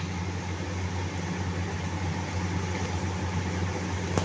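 Steady engine hum and road noise of a moving vehicle, heard from on board, with no change in pace.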